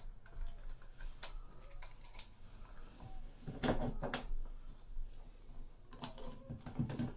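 Light clicks and taps of a small wooden block with spring-wing toggle bolts being handled against drywall as the toggles are pushed through their holes, with a cluster of louder knocks about three and a half to four seconds in.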